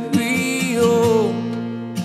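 Worship music: a voice sings a held line over acoustic guitar and sustained chords. The voice drops out a little past halfway, and a guitar strum sounds near the end.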